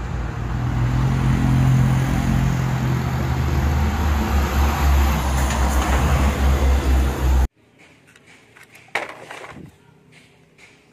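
A convoy of diesel trucks driving past, engines running with a steady deep rumble that cuts off abruptly about seven and a half seconds in.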